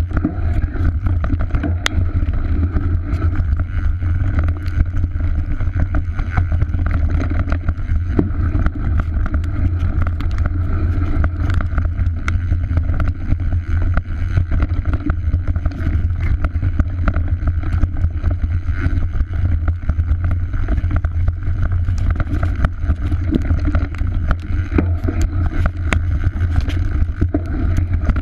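Mountain bike riding fast down a forest trail, heard from a chest-mounted camera: steady wind buffeting on the microphone and tyre rumble, with frequent small clicks and rattles from the bike.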